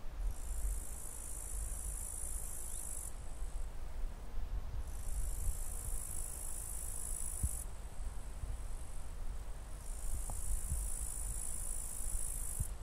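A high, shrill insect buzz in three bursts of about three seconds each, with short pauses between, over a low rumble.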